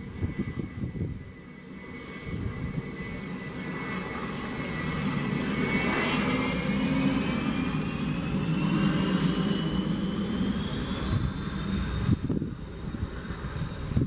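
Twin turbofan engines of a Bombardier business jet running as it taxis. About halfway through, the engines grow louder and a whine rises steadily in pitch while the low rumble swells as thrust builds.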